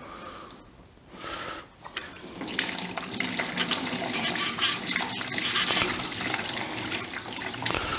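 Engine coolant gushing out of the Kubota D722 diesel's cooling system as it is drained, splashing into a drain tub and onto the floor. The pouring starts about two and a half seconds in and then runs on as a steady splashing hiss.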